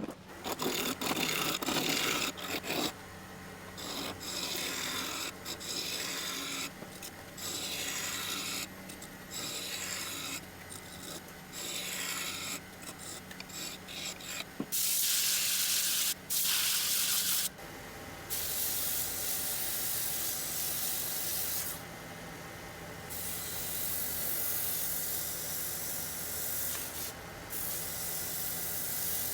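Wood being abraded by hand in repeated back-and-forth strokes of a second or two each, a rasping, rubbing sound. About halfway through it gives way to a louder, steady hiss with a faint hum, paused briefly twice.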